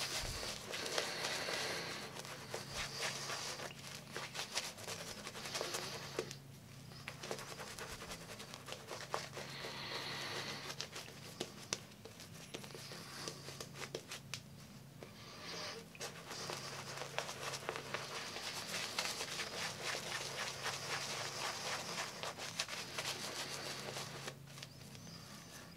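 Shaving brush working thick shaving-soap lather over a wet face as water is worked into it, a crackling, squishing bristle sound that comes in spells of strokes with short pauses.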